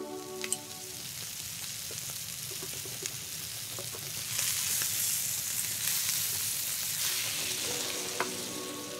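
Two moose steaks sizzling as they fry in a pan, the sizzle growing louder about halfway through, with a few sharp clicks.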